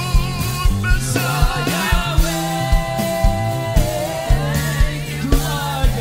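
Live gospel worship band playing with several singers: lead and backing vocals over a drum kit keeping a steady beat, with guitar and keyboards.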